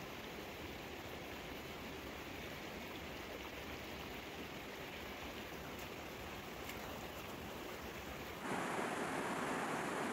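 Shallow stream running over stones, a steady rush of water. A little over eight seconds in it suddenly gets louder and fuller.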